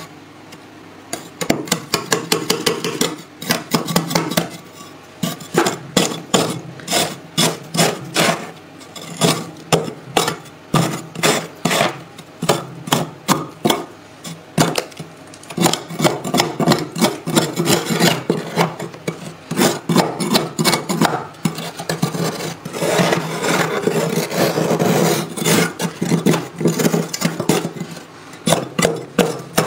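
Thick freezer frost being scraped off with a tool, in quick repeated rasping strokes a few a second, with a stretch of steadier continuous scraping about two-thirds of the way through.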